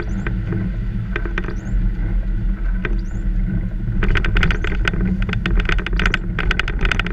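Car interior while driving on a wet city street: a steady low rumble of engine and tyres, with something in the cabin rattling in short clicks that grow much denser about four seconds in.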